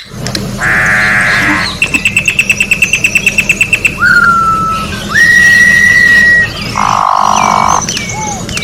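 Campo troupial (corrupião) singing a varied phrase. It opens with a harsh, buzzy note, then a fast trill of about fifteen high notes, then whistled notes including one long, level whistle, and ends with another harsh, buzzy note. Other birds call faintly behind it.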